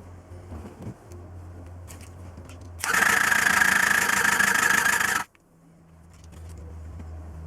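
Starter motor cranking a Honda MC14E 250 cc inline-four engine for about two seconds during a compression test. It starts about three seconds in and cuts off suddenly.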